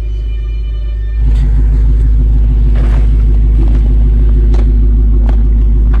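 2020 Dodge Charger Hellcat's supercharged 6.2-litre V8 idling with a deep, steady rumble that comes in abruptly about a second in. A few faint clicks sound over it.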